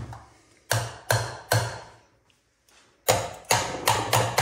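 Metal hand-mixer beaters knocked against the rim of a stainless steel bowl to shake off thick spread: four sharp taps in the first two seconds, then a quicker run of taps from about three seconds in.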